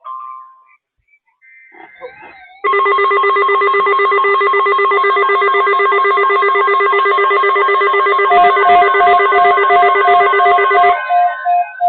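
Loud electronic alert tone: several steady tones sounding together with a fast trill running through them, lasting about eight seconds. Near the end, evenly pulsed beeps come in and it gives way to synthesizer-like tones with a falling glide.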